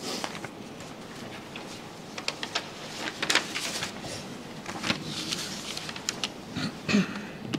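Shuffling footsteps, paper rustling and light knocks at a lectern microphone as people change places at it, coming in scattered clusters.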